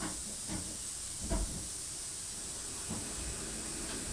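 Steady background hiss, with a few faint clicks and light thumps as the phone is handled and tapped, the strongest about a second in.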